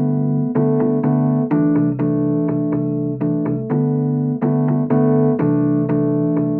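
Background music on a keyboard: piano-like notes and chords struck in a steady rhythm, a few strikes a second.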